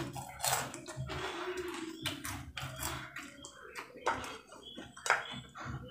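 Eating by hand from a glass plate: fingers gathering and pressing rice against the glass, making irregular soft clicks and taps.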